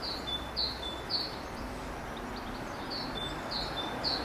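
A songbird singing a short high note over and over, about two a second, in two runs with a short pause in the middle, over a steady outdoor background hiss.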